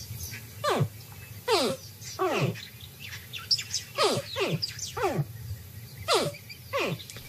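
Crocodile hatchlings calling as they break out of their eggs: a series of short chirps, each falling steeply in pitch, about ten in all, some in quick pairs.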